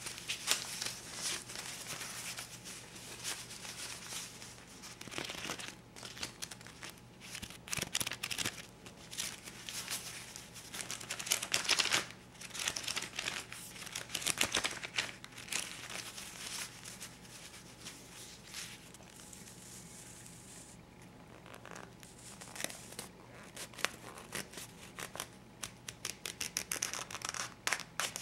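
A stack of US $50 and $20 paper bills being handled, with crisp crinkling and rustling of the notes. It goes quieter for several seconds past the middle, then picks up again.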